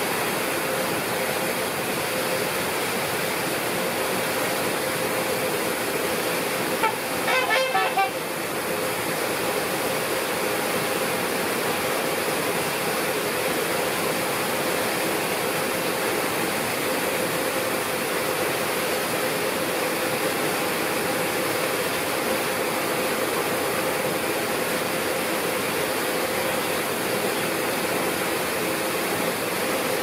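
Steady rushing water noise, unchanging throughout. About seven seconds in, a brief run of four or five horn-like honks, lasting about a second, rises above it.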